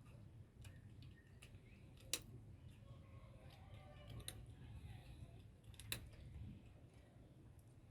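Cat eating, with faint scattered chewing clicks and two sharper clicks, one about two seconds in and one near six seconds, over a low background rumble.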